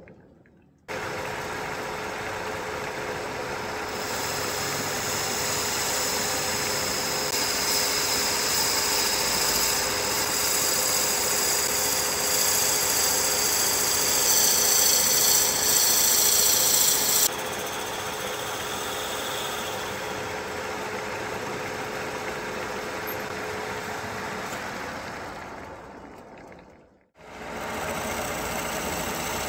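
Wood lathe running with a steady hum while a turning tool cuts into the spinning wood, adding a hiss of shavings that stops suddenly about halfway through. Near the end the sound fades out and comes back.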